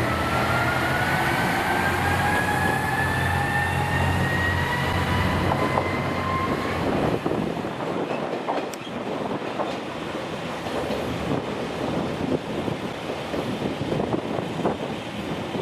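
Diesel railcar pulling away: the engine and a whine rise steadily in pitch for about the first seven seconds. Then the engine note drops away, leaving wheel-on-rail noise with clicks.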